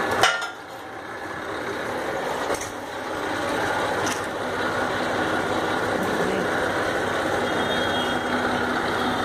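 Engine-driven farm machinery running steadily with a dense mechanical noise. A sharp click comes just after the start, and the level builds back up over the following few seconds.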